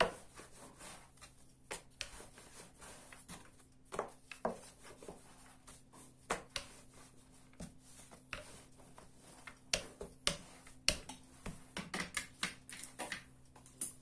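Plastic rolling pin rolling out yeast dough on a floured wooden board, with irregular light knocks and clicks as the pin and hands work the dough. A faint steady low hum sits underneath.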